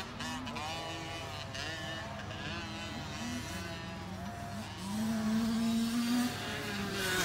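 Small youth dirt bike engines revving up and easing off as they ride the motocross track, several overlapping. One engine rises and holds a louder, higher rev about five seconds in.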